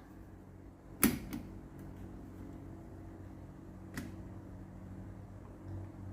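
Test buttons on a Jackson 103 tube tester clicking: one sharp click with a couple of lighter ones about a second in, and another single click about three seconds later, over a low steady mains hum.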